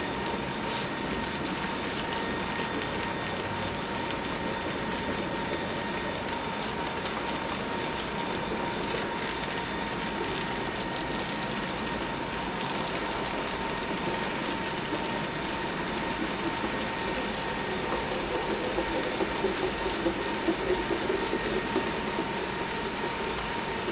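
Freight train moving along the track with steady rail and running noise, growing a little louder about three-quarters of the way through.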